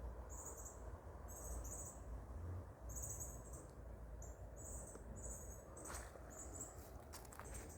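Crickets chirping in short, high trills, one or two a second, over a low rumble. A few faint clicks come near the end.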